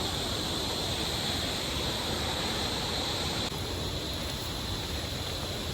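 Steady rush of a waterfall and river, an even hiss of falling water that drops slightly in level about three and a half seconds in.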